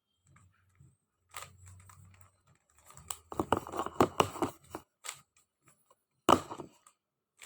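Plastic 3x3 Rubik's cube being turned by hand: a quick run of clicks and clacks as the layers rotate, densest in the middle, with one sharp clack near the end.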